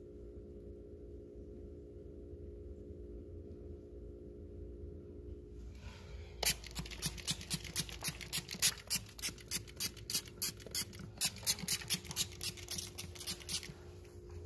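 Hand spray bottle pumped rapidly, misting the enclosure so the lizards can drink: a quick run of short hissing squirts, three or four a second, starting about six seconds in and stopping shortly before the end.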